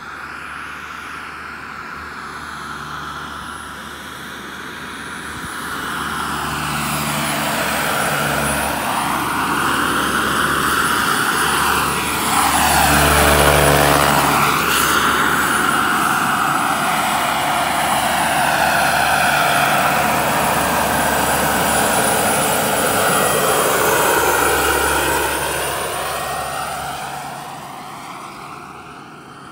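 Turbine-powered RC Chinook model helicopter (Jakadofsky 5000 turbine, twin 1.5 m rotors) making a low pass: its steady high turbine whine and rotor noise grow louder as it approaches, are loudest about 13 seconds in as it passes close by, then fade as it flies away.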